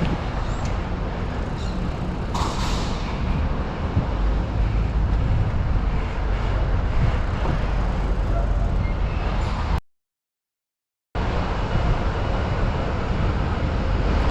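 Wind rushing and buffeting over the microphone as the bike rolls along, a steady noise that is heaviest in the low end. It cuts out to complete silence for just over a second past the middle, then comes back.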